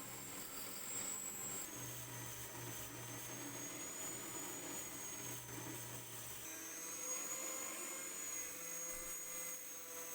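Electric power tool motor running steadily with a high whine. Its pitch shifts slightly and sags near the end.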